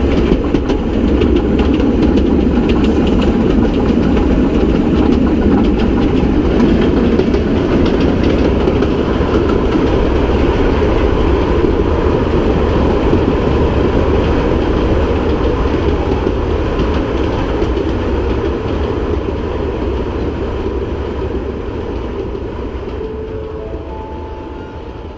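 Kurobe Gorge Railway narrow-gauge train running, heard from inside a passenger carriage: a steady rumble of wheels on rail with light clicking over the rail joints, fading out over the last several seconds.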